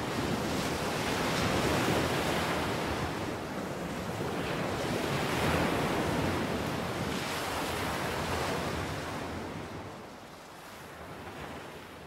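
Ocean surf breaking and washing, swelling about every three seconds, then dying away over the last two seconds.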